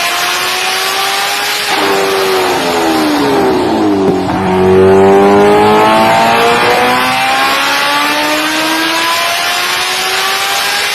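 Kawasaki motorcycle engine revving hard, its pitch climbing steadily, falling away after about two seconds, then building again to its loudest around five seconds in, with another drop near nine seconds.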